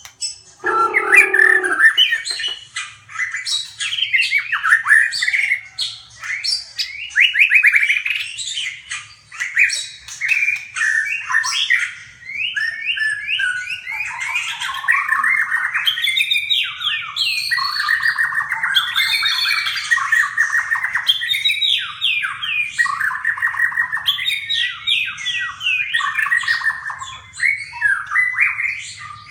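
Songbirds calling and chattering continuously in fast runs of repeated notes, with a brief lower-pitched call about a second in.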